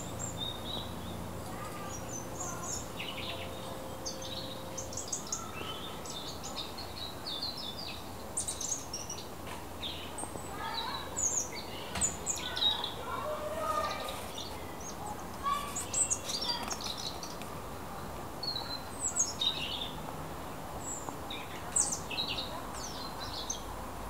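Several small songbirds chirping and twittering in the trees, many short high calls coming thick and fast, over steady low background noise.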